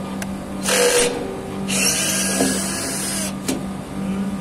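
Cordless drill-driver running in two bursts, a short one about a second in and a longer one of about a second and a half, with a click near the end, over a steady low hum.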